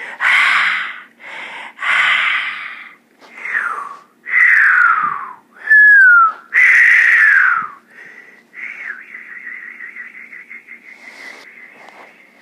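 A puppy whining: a string of short, high whines, several sliding down in pitch, then a thinner, wavering whine held for about four seconds near the end.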